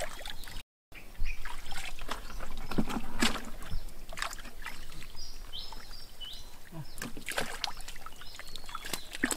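Hands sloshing and splashing in shallow muddy water while groping through the mud for fish, in irregular wet splashes. The sound cuts out completely for a moment about a second in.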